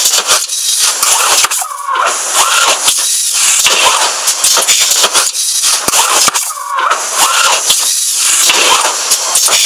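All-electric injection moulding machine with an in-mould-labelling robot running its production cycle: loud, steady hissing machine noise, with a short warbling squeal about two seconds in and again about seven seconds in.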